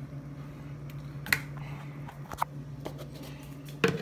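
Scattered light clicks and taps of a plastic scoop and containers being handled while protein powder is scooped into a jar, with a louder knock near the end, over a steady low hum.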